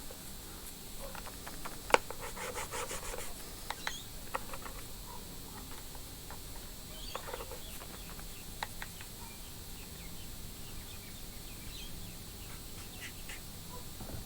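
Quiet hands-on work on a brushcutter: scattered clicks, taps and rubbing, with one sharp click about two seconds in followed by a quick run of fine ticks.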